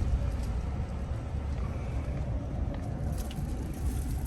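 Truck engine and road noise heard from inside the cab as it pulls in at low speed: a steady low rumble.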